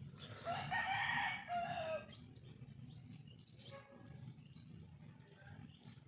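A rooster crows once near the start, one long call lasting about a second and a half that drops in pitch at the end.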